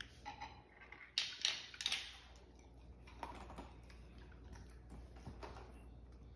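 Light clicks and rattles at a Pet Tutor remote treat dispenser's dish: a cluster of sharp clicks between one and two seconds in, then scattered softer clicks as a beagle noses and eats from the dish.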